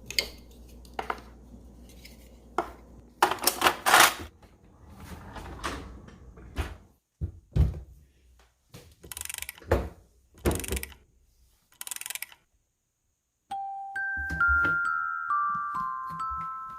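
Kitchen cleaning sounds: scattered knocks, clinks and short noisy strokes. About twelve seconds in they cut off to a second of silence, and a gentle melody of single bell-like notes begins, with a few soft knocks under it.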